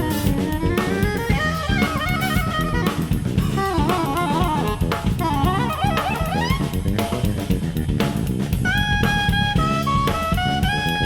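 Jazz trio of saxophone, electric bass and drum kit playing. The saxophone plays quick running lines, then longer held notes from about nine seconds in, over busy drums and bass.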